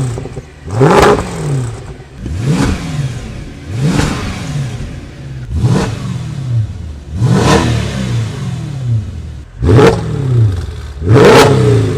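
Mercedes CL V8 engine and exhaust being blipped from idle about seven times, each rev rising quickly and falling back, roughly every one and a half to two seconds; the last two revs are the loudest.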